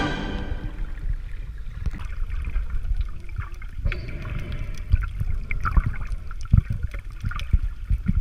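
Muffled underwater water noise picked up by a camera held just below the sea surface: a low rumble of moving water with irregular knocks, clicks and bubbling, a few stronger knocks near the end.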